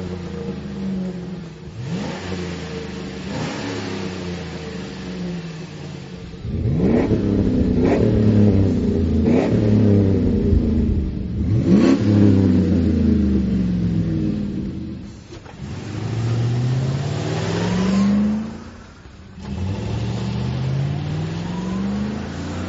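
Vortec 5.3-liter V8 in a 2010 GMC Sierra being revved through its exhaust: a few quick blips on the stock system, then louder, sharper revs through the Flowmaster Force II cat-back, which has a very aggressive sound. In the last few seconds the truck accelerates twice, the engine note climbing steadily each time.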